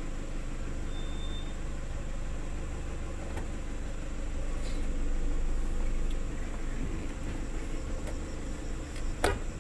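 Vehicle engine and running gear heard from inside the cab while it drives slowly on a dirt track, a steady low rumble, with one sharp knock near the end.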